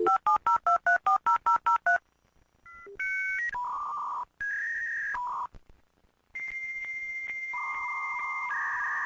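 Dial-up modem connecting: about a dozen quick touch-tone beeps dial a number, then the line answers and a held high tone with regular ticks and hissy handshake tones begin.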